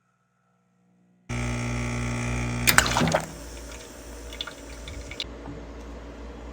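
Espresso machine's pump starting suddenly about a second in with a steady hum, a few sharp clicks near the middle, then a quieter hiss with small drips of liquid.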